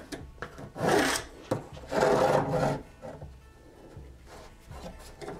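Pencil scratching along the edge of a steel combination square across the benchwork top, two strokes about a second and two seconds in, with small knocks as the square is set down and shifted.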